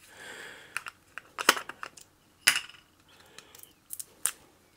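Fingernails picking and peeling protective plastic film off a small 45mm f/1.8 camera lens: a short soft rustle at the start, then scattered sharp clicks of nail and film against the lens barrel.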